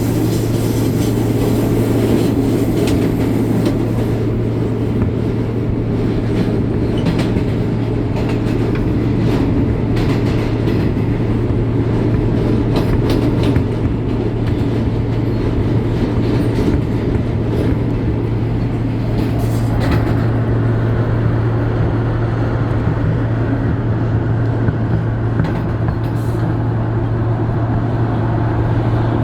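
R160 subway car running along the track, heard from inside with the air conditioning off: a steady rumble and hum with scattered clicks and rattles from the wheels and car body.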